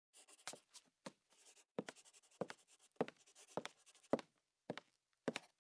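Faint writing on paper: a string of short, irregular scratchy strokes with small pauses between them.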